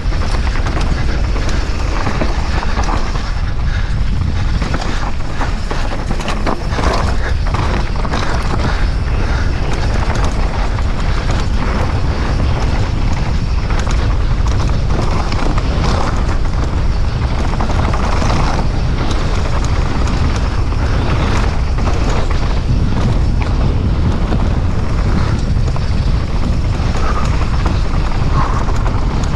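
Downhill mountain bike descending fast on dry, rocky dirt: a steady rumble of wind buffeting the action camera's microphone, with frequent rattles and knocks from the bike and its tyres over the rough ground.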